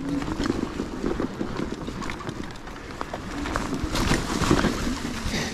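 Fat-tyre electric mountain bike rolling along a dirt trail: the tyres crunch and crackle over dry fallen leaves and twigs in a busy, uneven patter, with a low steady hum underneath.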